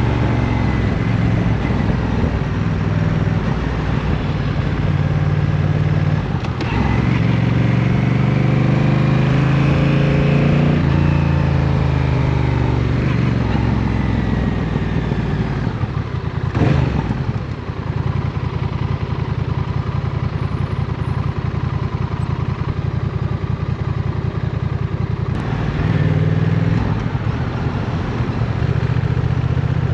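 Honda CMX1100 Rebel's parallel-twin engine running on the move in city traffic. It speeds up with a rising pitch about a quarter of the way in, eases off, then holds a steadier cruise. There is a brief sharp knock about halfway through.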